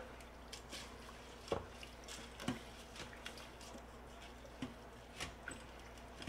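A spoon stirring rice and liquid in an Instant Pot's stainless steel inner pot: faint wet swishing, with a light tap of the spoon against the pot every second or so.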